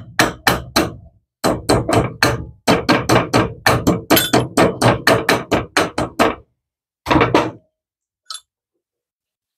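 Small hammer tapping metal on metal on top of a valve in an overhead-valve small-engine cylinder head, to seat the valve keepers in the groove of the valve stem. There are quick runs of light strikes, about three to four a second, with two brief pauses. Two last taps come about seven seconds in, then it stops.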